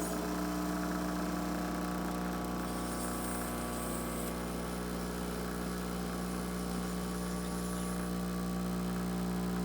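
Mr. Coffee home espresso machine brewing a shot of espresso: a steady electric buzzing hum, with a brief higher hiss about three seconds in.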